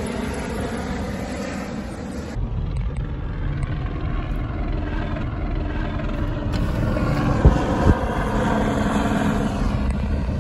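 A helicopter flying low overhead, then, after a cut about two seconds in, the low rumble of a car's interior while driving. Two sharp knocks about half a second apart come partway through the drive.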